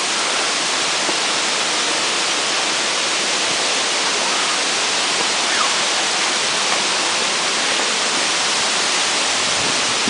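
Waterfall rushing: a loud, steady hiss of falling water that does not change.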